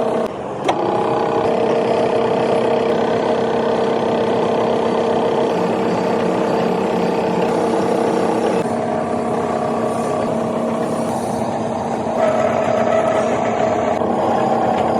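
Lathe running while a tool bores out a six-inch pulley: a steady machine whine. A sharp click comes under a second in, and the whine's pitch shifts about 8.5 seconds in and again about 12 seconds in.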